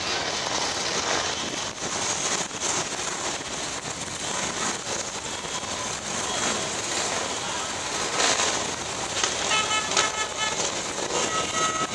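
A mass of Harley-Davidson and Honda motorcycles riding slowly by in procession: the dense, steady noise of many engines running together. A held, pitched tone joins in near the end.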